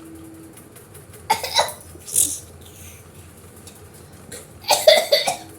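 A person's short bursts of coughing and laughter, once about a second and a half in and again near the end, with a brief breathy puff between them.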